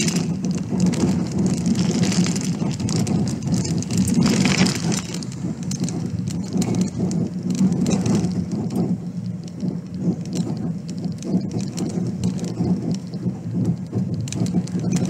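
Car driving along a gravel road, heard from inside the cabin: a steady low rumble of tyres and engine with many light ticks and patters over it, and a louder hiss a couple of seconds in.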